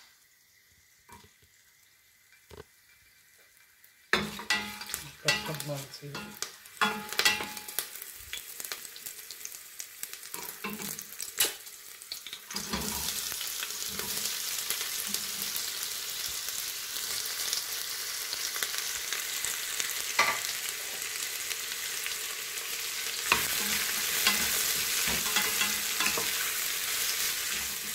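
Whole spices crackling in hot oil in a stainless steel pressure cooker, with sharp knocks and scrapes of a spatula against the pot, starting about four seconds in after near silence. About halfway through, sliced onions go in and a steady loud sizzle takes over as they are stirred, growing stronger near the end.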